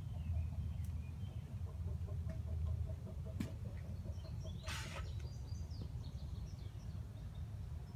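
Outdoor ambience: birds chirping and calling over a steady low rumble. A rapid, evenly pulsing trill runs through the first half, and a short hiss comes about five seconds in.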